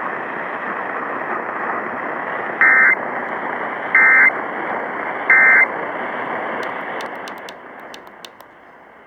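Three short bursts of Emergency Alert System digital data tones, the End of Message code that closes an EAS test, heard over steady radio hiss. Near the end the hiss fades down, with a few sharp clicks.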